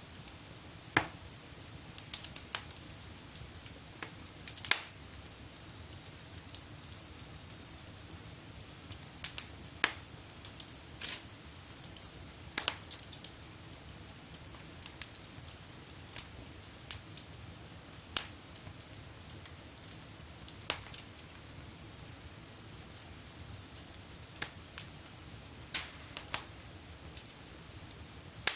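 Wood fire burning in a fireplace, crackling with irregular sharp pops, one or two a second, over a steady low hiss.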